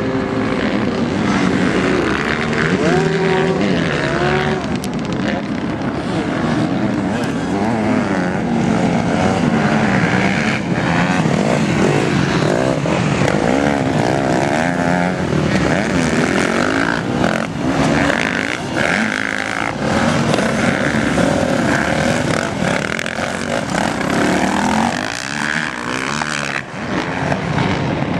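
Motocross bikes, among them a Honda CRF150 four-stroke single, running around a dirt track, their engines revving up and dropping back again and again, with several bikes heard at once.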